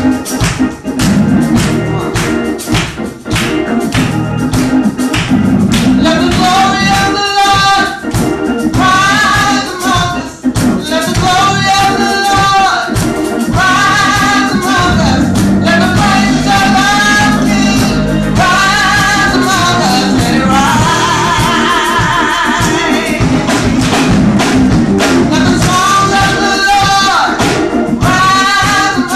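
Live gospel worship music: women singing long, ornamented phrases into microphones, backed by keyboard and drums.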